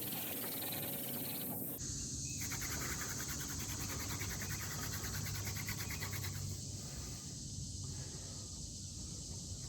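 Hand-drill fire-making: a wooden spindle spun between the palms grinds in a hearth board, making a steady hissing, rasping friction noise. The sound changes abruptly about two seconds in.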